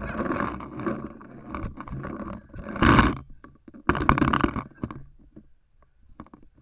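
Muffled shouting and rumbling handling noise from a paintball marker's mounted camera, with two loud bursts a second apart about three seconds in, then fading to scattered soft footsteps on concrete.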